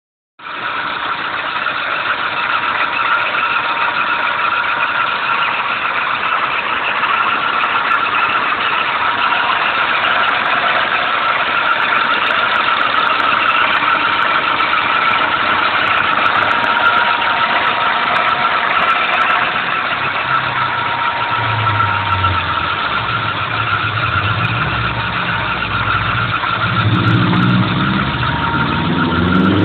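Peugeot 206 engine running, with a steady high-pitched whine over it: the strange noise the owner is trying to record. From about two-thirds of the way in a deeper engine note joins, rising in pitch near the end as the engine is revved.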